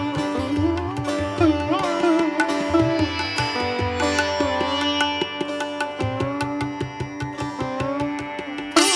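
Background music in Indian classical style: a plucked string melody with notes that bend up and down, over a hand-drum beat.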